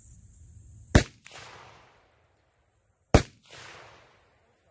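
Two gunshots about two seconds apart, each followed by a short fading echo.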